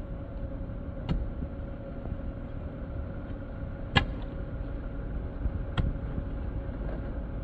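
A motor or engine running steadily with a low rumble and a thin steady hum, broken by three sharp knocks, the loudest about four seconds in.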